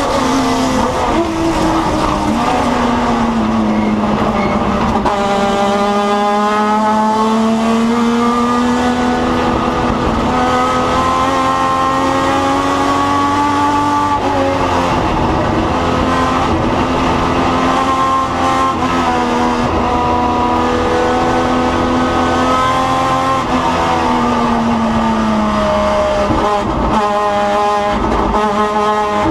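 Race car engine heard from the onboard camera, under heavy load through a lap. Its note climbs slowly on the straights and drops back off for the corners, about three times, then climbs again near the end.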